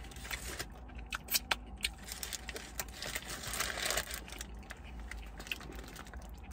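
Quiet eating sounds: chewing, with the burger's paper wrapper crinkling as it is handled. Scattered sharp clicks, and a longer rustle about three to four seconds in.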